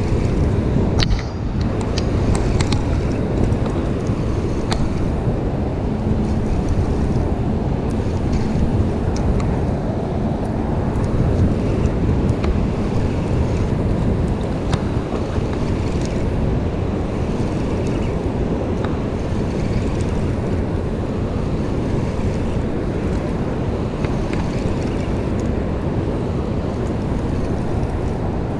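Steady wind buffeting the microphone over the rush of turbulent river water below a dam's open spillway gates, with a few light clicks now and then.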